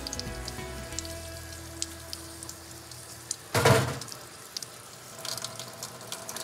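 Tap water running over a stainless steel knife in a sink while it is scrubbed with a brush and rubbed by hand, rinsing away the unbonded laser-marking spray, with small clicks of handling. About three and a half seconds in comes a brief, louder rush of splashing water. Soft background music runs underneath.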